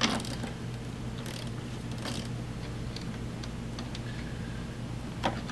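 Ratchet wrench loosening the nut on a fuse-box power stud: a few scattered sharp clicks and small ticks of tool on metal, over a steady low hum.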